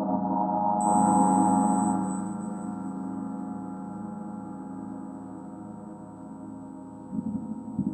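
Mercury planetary gong ringing with a sustained, shimmering wash of many overtones. It swells about a second in, slowly fades, and swells again near the end as the gong is played once more.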